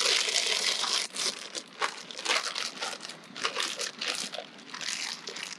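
A plastic bag crinkling and rustling in irregular crackles as flour-coated chicken thighs are worked out of it.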